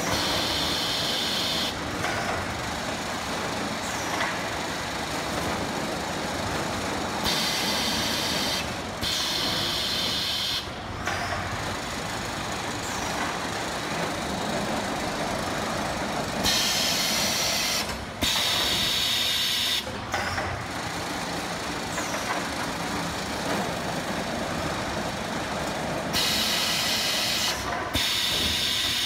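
Robotic palletizing line running: a steady machinery noise from the roller conveyors and the Fuji EC201 robot, overlaid with pairs of loud pneumatic air hisses, each a second or two long, repeating about every nine seconds with the robot's handling cycle.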